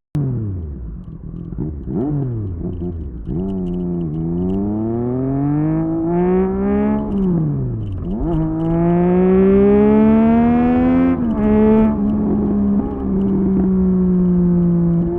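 Triumph Street Triple 765 RS inline-three engine through an SC Project S1 exhaust, revving and accelerating: the pitch rises and falls several times, climbs with quick drops at gear changes, then holds nearly steady near the end.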